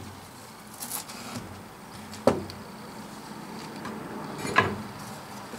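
A sand-filled metal molding flask being flipped over and handled on a wooden molding bench. Quiet handling noise is broken by two sharp knocks, one about two seconds in and one near the end.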